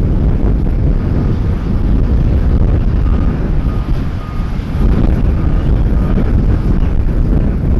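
Jet airliner's engines rumbling steadily as it flies the approach or lands. A row of faint short beeps at one pitch, about two a second, sounds through the middle of it.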